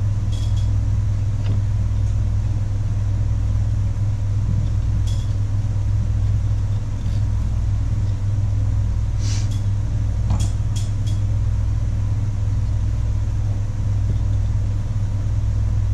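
A steady low hum, with a few light clicks of metal parts as the pulley, spring and pawls of a David Bradley 360 chainsaw's recoil starter are handled; several clicks come close together about ten seconds in.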